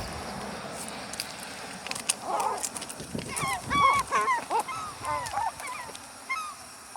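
Seagulls calling: a run of short, bending squawks starting about two seconds in, thickest around four seconds, then sparser. At the start the tyre noise of a passing car fades away.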